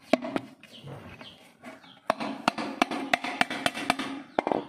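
Hollow knocks of a PVC pipe struck down on a wooden plank to drive a reducer fitting onto its end: two knocks near the start, then a quicker run of about three a second through the second half.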